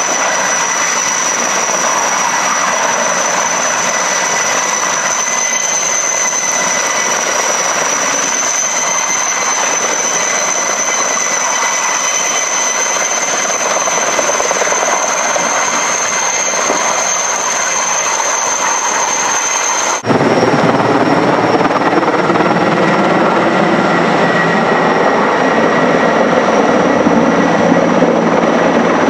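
Erickson Air Crane (Sikorsky S-64 Skycrane) twin-turbine heavy-lift helicopter hovering low over water: steady rotor and turbine noise with a high-pitched turbine whine. About twenty seconds in, the sound jumps abruptly louder and fuller.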